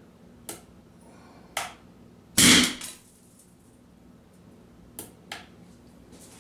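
A 1/32-scale model 11-inch Dahlgren gun fires its small gunpowder charge, set off by a glow plug. It makes one sharp bang with a brief ring-out, and there are a few light clicks before and after it.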